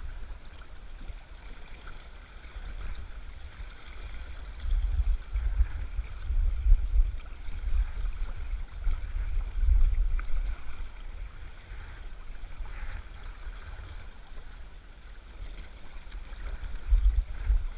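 Shallow mountain river current rushing and swirling around a wading angler's legs, close to the microphone, with a low rumble that swells in gusts, loudest around the middle and again near the end.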